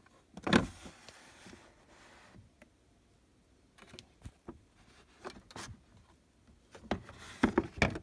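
Plastic detergent drawer of a Beko washing machine pulled open: a sharp clunk, then a scraping slide lasting a couple of seconds. A few light plastic clicks follow, and a quick run of knocks and rattles near the end as the drawer is taken out.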